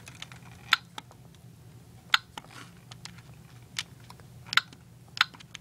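About five short, sharp clicks at irregular intervals, from buttons being pressed on a Lego Mindstorms EV3 brick while stepping through its menus, over a faint steady hum.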